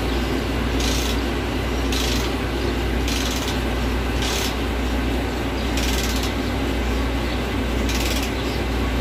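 Volvo D13 inline six-cylinder turbo diesel idling steadily, heard close up in the engine bay, with a short hiss about once a second.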